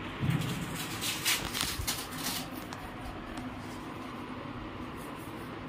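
Scratchy rustling of a shoulder brace's straps being pulled and adjusted on a bare back, in short bursts near the start over a steady background hum, with a soft thump just before them.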